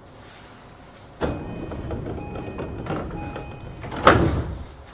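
The door-closing chime of an E233 series 5000 commuter train beeps three times while the sliding passenger doors run shut, ending in a loud thump as the doors close about four seconds in.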